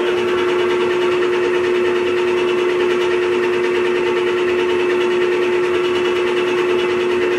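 Clausing Metosa engine lathe running with its spindle turning: a steady, even-pitched whine from the geared headstock and drive motor.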